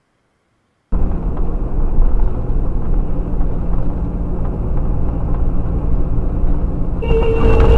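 Dashcam recording from inside a moving car: steady engine and road rumble, starting suddenly about a second in after silence. Near the end a car horn sounds with a steady tone.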